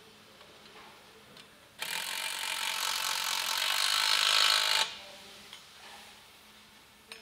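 Cordless DeWalt power driver runs for about three seconds, growing louder, then stops abruptly. It is spinning a retainer-plate nut down through the axle flange's access hole, drawing the axle shaft and bearing into the housing before final torque.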